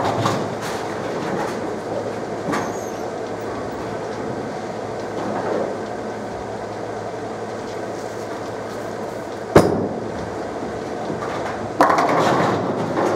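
A Motiv Carbide Tank bowling ball hits the lane with a single sharp thud on release, rolls down the lane, and about two seconds later crashes into the pins with a loud clatter lasting over a second. A steady rolling rumble from the bowling alley runs underneath.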